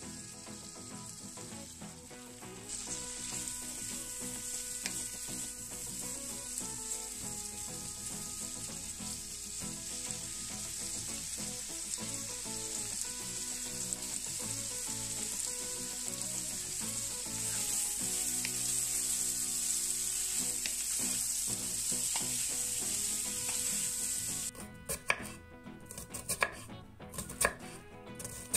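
Diced potatoes sizzling as they fry in butter in a frying pan, the sizzle jumping louder about three seconds in as the potatoes go in, then holding steady. Near the end it gives way to a kitchen knife chopping an onion on a wooden cutting board: a quick run of sharp knocks.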